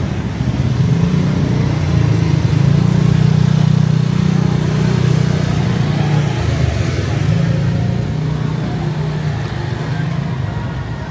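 A motor vehicle's engine running close by on a city street, a steady low hum that swells about a second in and eases off after about seven seconds, over general street noise.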